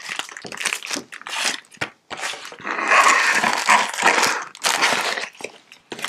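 Clear plastic packaging of a mini diamond painting sticker kit crinkling and rustling as it is handled, in irregular bursts that are loudest a few seconds in.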